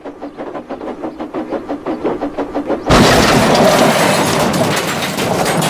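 A fast, even rattling that grows steadily louder, then a sudden loud crash about three seconds in, followed by continuous smashing and clattering of breaking debris.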